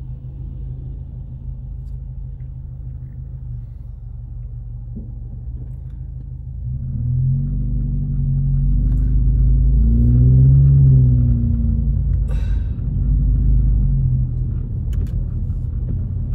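Car engine and road rumble heard from inside the cabin; about seven seconds in it grows louder as the car speeds up, the engine note rising and falling, then settles to a steadier run near the end.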